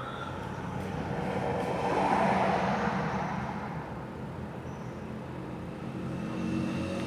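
A road vehicle passing, its noise swelling to a peak about two seconds in and fading away, over a steady low hum.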